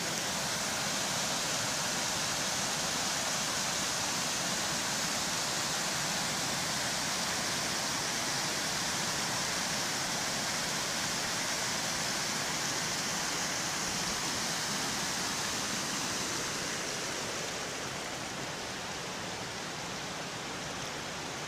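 Water rushing and splashing over low, stepped rock ledges of a small waterfall: a steady hiss that grows a little quieter and duller about three-quarters of the way through.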